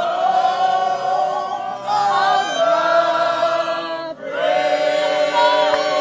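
A group of voices chanting together in long held notes, with a short break about four seconds in.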